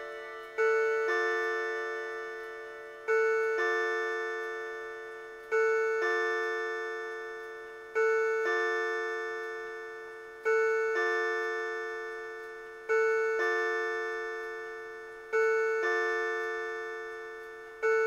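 Seiko RE502B karakuri wall clock counting the hour on its electronic chime, not its bells: a two-note bong-bong struck about every two and a half seconds, eight counts here, each fading away before the next.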